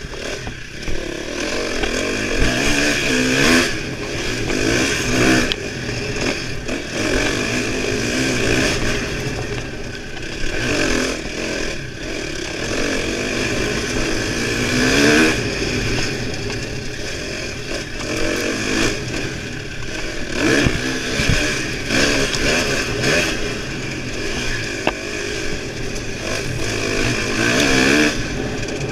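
Dirt bike engine being ridden hard, revving up and down again and again as the rider goes on and off the throttle, with short dips between pulls every few seconds.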